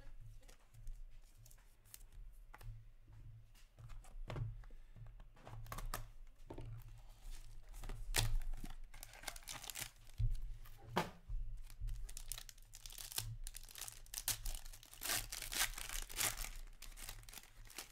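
Hands tearing open and crinkling the plastic and foil wrapping of a hockey trading-card pack, an irregular ripping and crackling that comes in bursts, loudest about 8 seconds in and again near the end.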